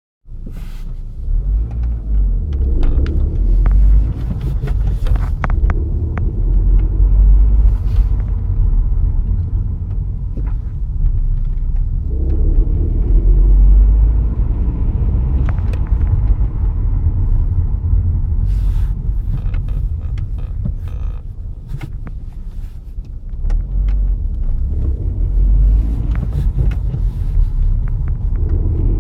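Volkswagen Golf IV 1.8T 20-valve turbo four-cylinder (AGU) running at about 1000 rpm with a low rumble that swells and eases several times, with scattered clicks. This is the strange noise that the owner suspects comes from the clutch or gearbox.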